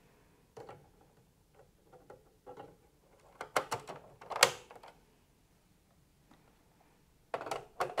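Plastic covers of a Danfoss iC7-Automation drive being fitted and snapped into place. Soft handling noises come first, then a quick run of sharp clicks and a louder snap about four seconds in. Another burst of clicks near the end comes as the control panel is pressed on.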